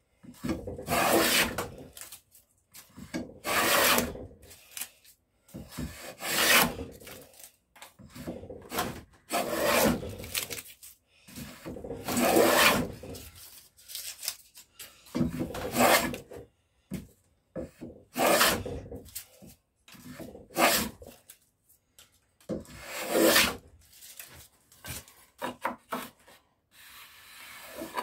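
Cast-iron rebate plane cutting a rebate along a cedar rail by hand: repeated rasping strokes of the blade through the wood, one every two to three seconds, with short pauses between them.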